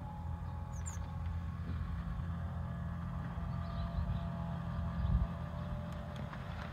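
A steady low mechanical hum, with a short soft knock about five seconds in.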